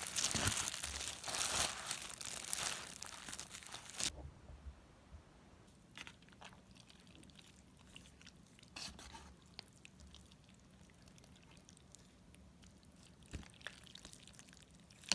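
Crinkling and crunching for about four seconds, then a few scattered small taps and clicks.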